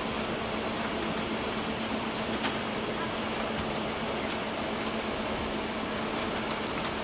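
Steady rushing noise, like a large fan running, with a constant low hum and a few faint clicks.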